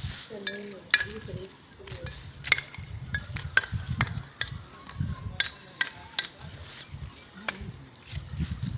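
Loose fired-clay roof tiles clicking and clacking against each other underfoot, in irregular sharp knocks about every half second.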